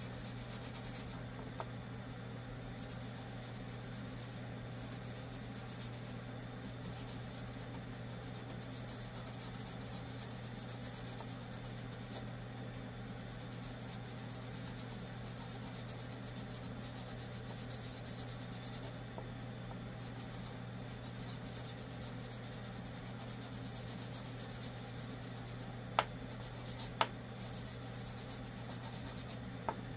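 Felt-tip marker scratching and rubbing over a carved wooden lure body as it is coloured yellow, over a steady low hum. Two sharp clicks near the end.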